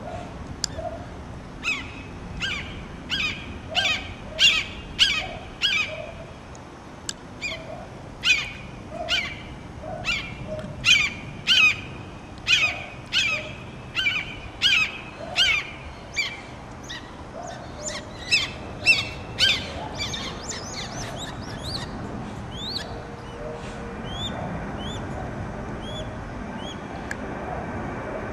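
Red-shouldered hawk calling a long series of loud, down-slurred kee-ah calls, a little more than one a second. About two-thirds of the way through they give way to fainter, shorter calls.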